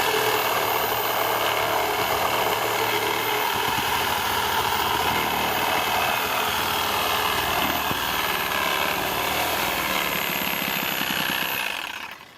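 Power saw running steadily as it cuts through a tree trunk, with a thin high whine over the cutting noise; it stops near the end.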